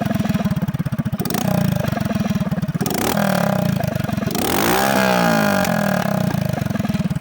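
Hero Honda Splendor motorcycle's single-cylinder four-stroke engine running with a fast, even firing beat, revved up a little past halfway and then settling back.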